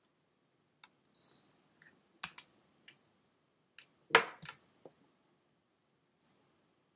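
Sparse short clicks and soft taps from a person's hands, fingers and rings knocking together and against the body while signing, the loudest a little past two seconds and around four seconds in.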